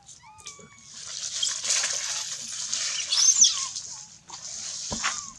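Baby macaque calling: a few short, thin squeaks, then a high, noisy, screeching scream lasting about three seconds that peaks with a wavering shriek near its end. A short knock follows near the end.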